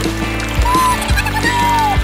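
Background music with a steady beat and held bass notes; about halfway through, two short high gliding tones sound over it, the second longer and falling.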